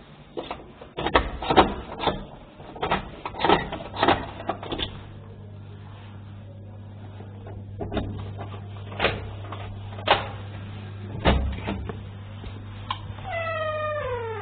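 Free-improvised electric guitar: a quick run of sharp percussive clicks and knocks, then sparser single strikes over a steady low hum. Near the end a pitched tone with overtones slides steadily downward.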